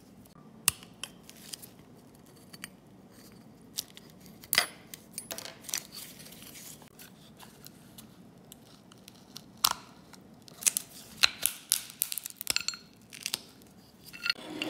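Rotten wooden handle of an old rusty cleaver being worked loose and pulled off its metal tang by hand: scattered dry cracks, crackles and sharp clicks of splitting wood and metal. The sounds come in two busy clusters, a few seconds in and again in the second half.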